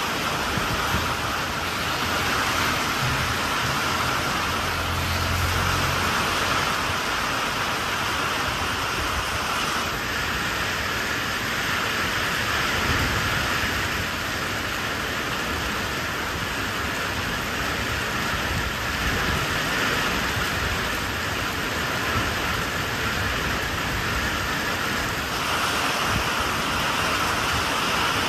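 Heavy rain pouring steadily onto a wet road and tree leaves, an even hiss. A brief low rumble comes about three seconds in.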